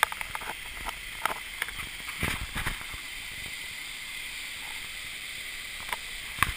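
Steady rush of falling water from a waterfall, with scattered short knocks and clicks over it.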